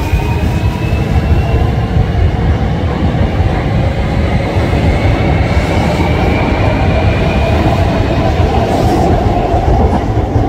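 Hankyu 1000 series electric train pulling away close by: a steady rumble of wheels on rails, with a motor whine that climbs slowly in pitch as it gathers speed.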